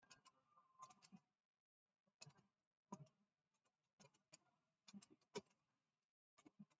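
Faint keystrokes on a computer keyboard: short clicks coming in irregular clusters as words are typed.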